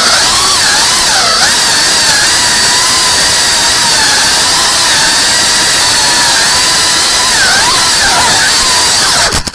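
3.5-inch cinewhoop FPV drone's brushless motors and propellers whining steadily, the pitch wavering up and down as the throttle is worked. The sound cuts out abruptly at the very end as the throttle is chopped.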